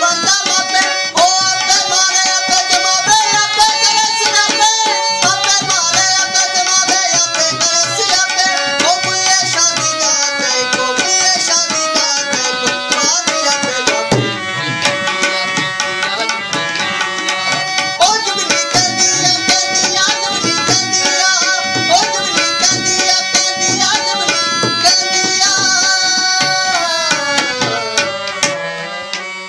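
Harmonium playing a melody over a held drone note, accompanied by tabla with a dense run of strokes. The playing fades near the end.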